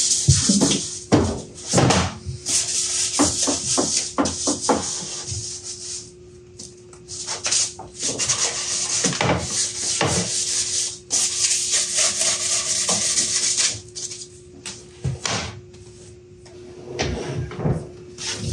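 A plywood drawer being sanded by hand: rasping, rubbing strokes in runs with short pauses. Near the end, after a cut, the rubbing gives way to a few light knocks.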